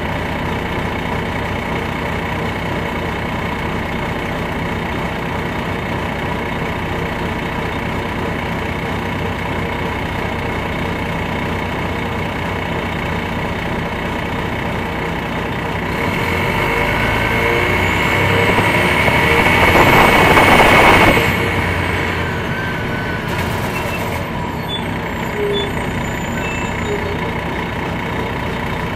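Detroit Diesel Series 60 engine of an MCI D4000 coach, heard from inside the bus, idling steadily. About halfway through it revs up for several seconds with a rising whistle, then drops back sharply, and a brief hiss of air follows a couple of seconds later.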